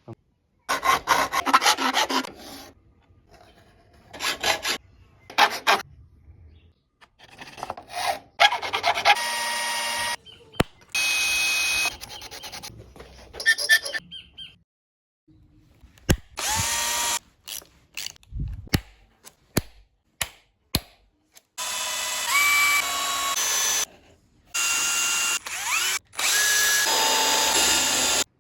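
Power drill running in repeated bursts of a few seconds, its motor whine rising in pitch as it spins up, with single knocks between the bursts.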